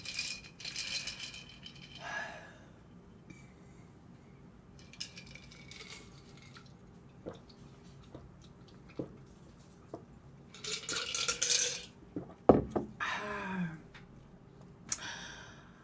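Eating sounds at the table: a few bursts of slurping noise and light clinks of utensils against dishes. A sharp knock comes about twelve and a half seconds in.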